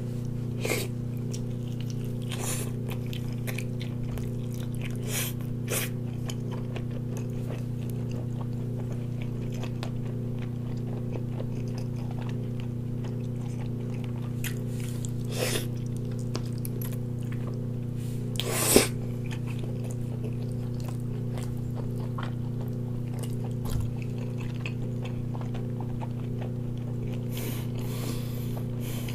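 Someone eating a large sauce-glazed chicken leg: scattered short bites and mouth sounds, the sharpest about 19 seconds in and a few more near the end, over a steady low hum.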